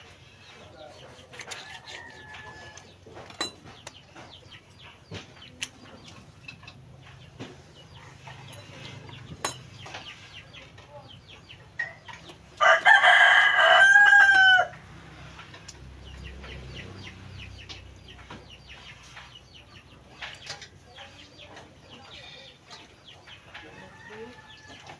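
A rooster crows once, loud and about two seconds long, near the middle. Around it, faint scattered taps and clicks of a knife working on a cutting board.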